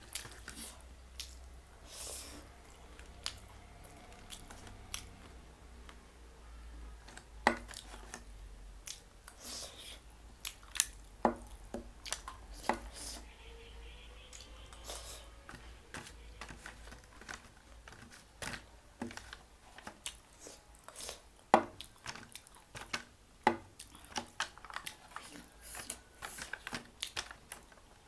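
Close-up eating sounds: a person chewing, with irregular sharp crunches and wet clicks, denser in the second half.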